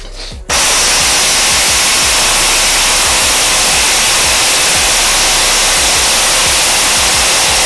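Corded electric impact wrench hammering continuously on the crankshaft pulley bolt of a Volvo 740 engine, driving the bolt tight. It starts about half a second in and runs without a break.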